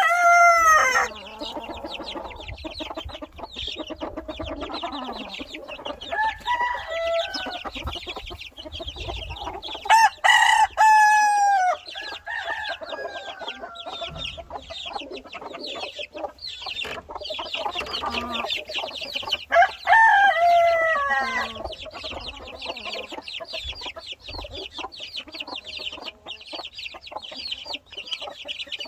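Wheaten Ameraucana chicks peeping continuously and a hen clucking, while a rooster crows loudly three times: at the start, about ten seconds in, and about twenty seconds in.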